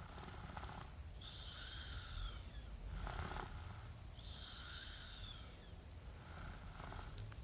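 Snoring during sleep: a drawn-out whistly breath with a slightly falling pitch, about a second and a half long, alternating with a shorter, lower rasping breath. The cycle repeats about every three seconds.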